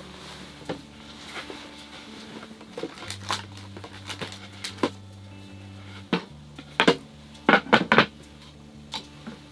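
Light clinks and knocks of dishes and utensils being handled while coffee things are set out, with a few sharper clatters in quick succession past the middle.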